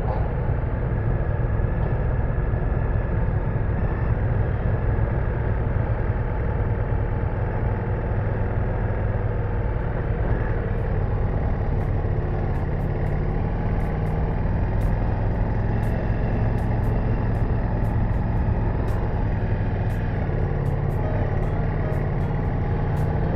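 Ducati Multistrada V4S's V4 engine running steadily at low speed, with wind rush over the rider's microphone. From about halfway on there is also a scatter of light ticks.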